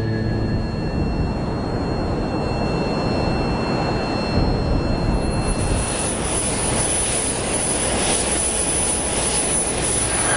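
Jet aircraft engine noise: a dense, steady rumble that turns brighter and hissier from about halfway through.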